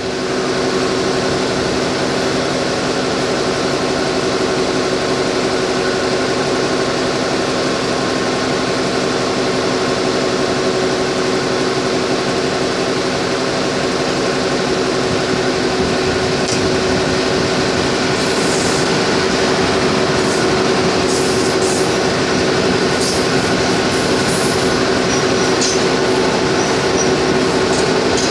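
A Daewoo diesel railcar train arriving, its engines giving a steady, loud hum. From about halfway on, brief high squeals are added as it draws in alongside.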